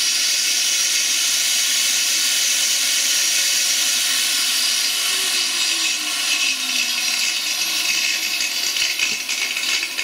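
A 1200 W angle grinder running at full speed with nothing to cut, a steady high-pitched whine. It is powered from lead-acid batteries through a 12-to-220 V inverter, and at these revs it pulls the battery voltage down to about 11.5 V.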